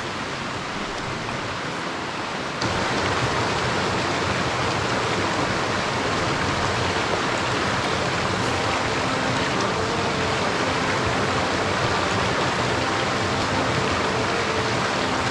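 Stream water rushing over a low concrete weir, a steady rush that becomes louder about two and a half seconds in and then holds.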